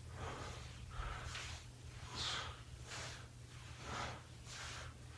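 A man breathing hard through a set of bodyweight squats, a short noisy breath about every two-thirds of a second in time with the reps.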